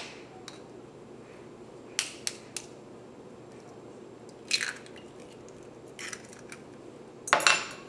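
A hen's egg cracked against a fork over a stainless steel bowl, with light clicks and taps of the fork and eggshell around it. A louder clatter near the end as the fork is set down.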